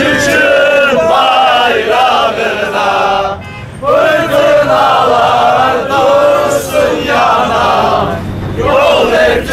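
A group of young men chanting a national song together in unison, with a short break a little over three seconds in.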